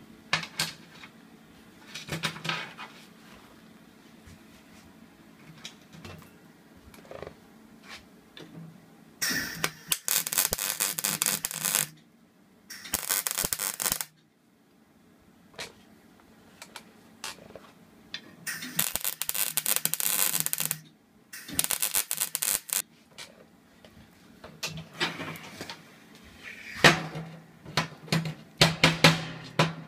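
Electric arc welding tacking a bundle of chainsaw chain onto a steel rod: four spells of steady crackling arc, each two to three seconds long. Clanks and taps of steel being handled on a steel bench come before and after, louder near the end.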